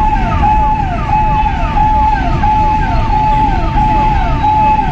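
Electronic siren repeating a short steady tone that then drops in pitch, about three times a second, over a steady low rumble.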